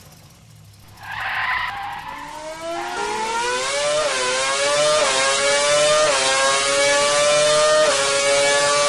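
Muscle car launching on a quarter-mile run: a short tire screech about a second in, then the engine revs up under full acceleration and goes through four quick gear shifts, its pitch dipping at each shift and climbing again.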